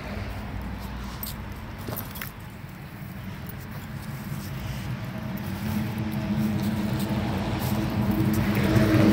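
An engine hum, a steady low drone that grows louder through the second half.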